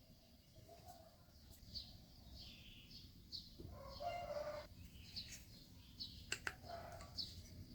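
Faint, repeated short high chirps of small birds at irregular intervals, with two sharp clicks a little past six seconds in.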